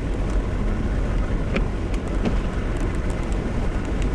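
Car driving slowly on slush-covered road: a steady low rumble of engine and tyres in slush, with a few short ticks.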